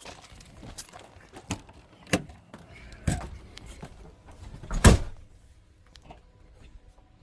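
A few separate knocks and clunks, the loudest a heavy thud about five seconds in.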